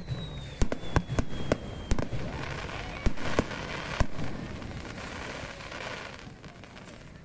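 Aerial fireworks going off over the sea: a string of sharp bangs in the first four seconds, with a dense crackle behind them that fades out about six seconds in.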